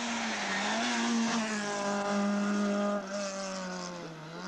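Talbot Samba Rallye rally car's four-cylinder engine held at high revs as the car comes up and passes, its pitch falling over the last second or so as it goes away. A brief hiss is heard about three seconds in.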